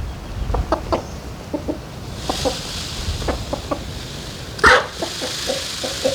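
Chickens clucking in short, scattered notes, with one louder squawk about four and a half seconds in.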